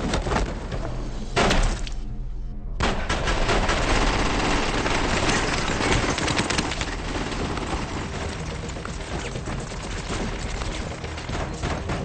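Film action soundtrack: a long, dense burst of rapid gunfire that starts suddenly after a short silence a little over two seconds in, then thins out in the second half, with music underneath.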